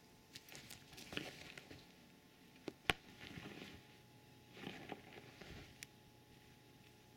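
Soft rustling and shuffling of a crocheted blanket being moved as a hand lifts it and a cat burrows under it, in short irregular spells. A sharp click about three seconds in is the loudest sound, with a few fainter clicks around it.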